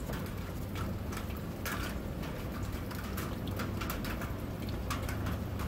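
A gloved hand twisting the plastic cap of a canister oil filter housing loose, with scattered small clicks and rustles over a steady low hum.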